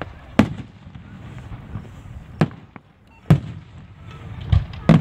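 Aerial fireworks shells bursting overhead in a display, about five sharp booms spaced irregularly, two of them close together near the end.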